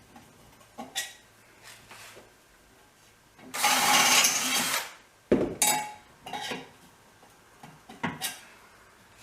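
Power drill running briefly, about a second and a half, drilling into the sheet-metal muffler can, where the hole is kept small to leave metal for tapping threads. It is followed by a sharp clank and a few knocks of tools and metal being handled.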